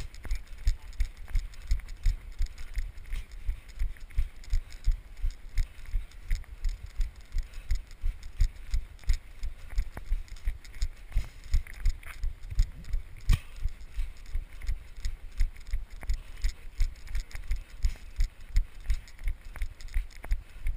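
A runner's footfalls on snow, a steady rhythm of dull thuds about three a second, with one sharper knock about 13 seconds in.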